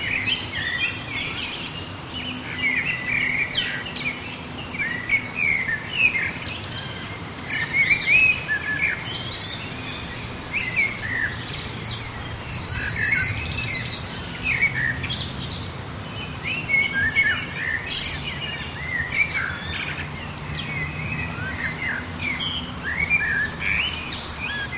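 Several small songbirds chirping and calling over one another in a garden, with short whistled chirps throughout and a rapid high trill three times. A faint low hum runs underneath.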